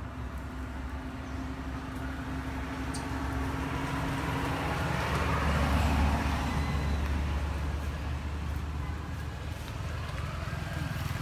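A motor vehicle passing by: a low engine rumble and road noise that swell to a peak about halfway through, then fade away.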